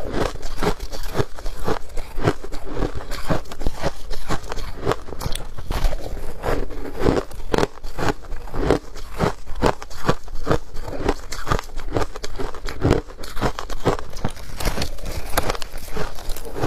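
Ice being bitten and chewed, a steady run of sharp crunches, a few a second.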